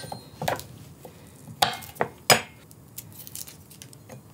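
A few sharp knocks and clinks of garlic cloves and utensils against a glass chopper bowl as ingredients go in, the loudest a little past two seconds in.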